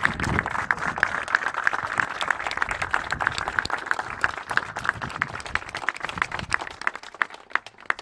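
A small crowd applauding by hand, the clapping thinning to a few scattered claps and stopping near the end.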